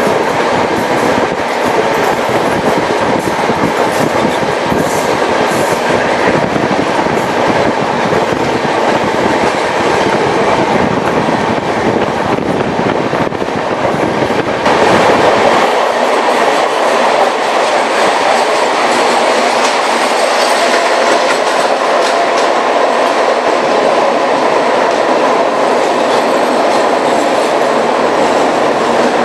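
Express passenger train running on the rails: a steady rumble with wheel clatter over the track. About halfway through, the deep rumble drops away and the sound turns slightly louder and brighter.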